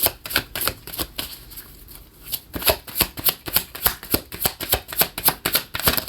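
A deck of tarot cards being shuffled by hand: a quick run of card slaps and flicks, about five a second, with a short lull about two seconds in.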